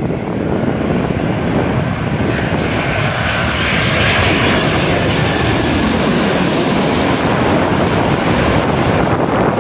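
A Boeing 737-800's CFM56-7B turbofan engines on landing approach, passing low overhead. The jet roar grows louder about four seconds in, and a high engine whine slides down in pitch as the aircraft goes over.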